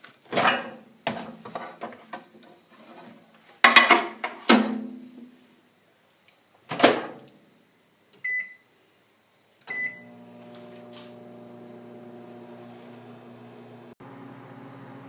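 Several knocks and clunks as an ear of corn is put into a microwave oven and the door is shut, then two short keypad beeps about 8 and 10 seconds in, after which the microwave oven starts running with a steady hum.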